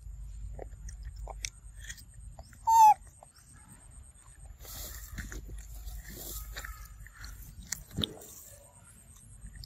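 A macaque chewing fruit: soft, wet chewing with small scattered clicks. One short, loud, high-pitched animal call cuts in about three seconds in, the loudest sound, and there is a sharp click near the end.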